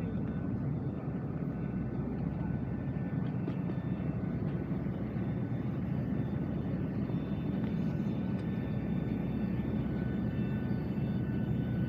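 Steady airport apron drone from a parked Boeing 737-800 and its ground equipment: an even low rumble with faint thin whining tones held above it.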